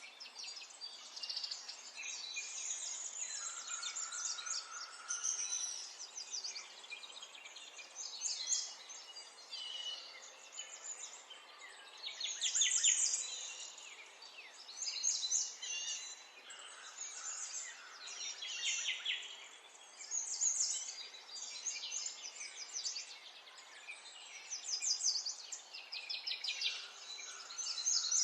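Several songbirds singing at once, with short overlapping phrases and rapid trills coming every few seconds, over a faint steady outdoor background hiss.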